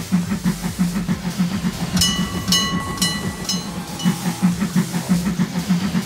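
Recorded steam locomotive running sound played by a toy railway crossing set in its steam-locomotive mode: steady rhythmic chuffing. In the middle a bright ringing ding repeats about twice a second for a second and a half.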